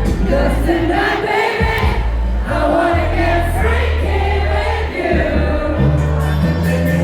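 Live R&B pop performance: several voices singing over a loud backing track with heavy, held bass notes that change every second or so, heard through a concert PA in a large hall.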